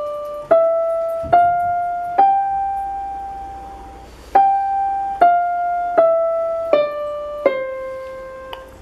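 Casio CTK-481 electronic keyboard in a piano voice, played one note at a time: a five-note scale climbing step by step to a held top note, then the same top note again and back down step by step to a held bottom note.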